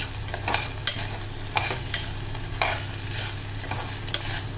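A metal spoon scraping and clinking against the sides and bottom of a pressure cooker as washed rice is stirred and roasted in ghee, in irregular strokes about one or two a second. A steady low hum runs underneath.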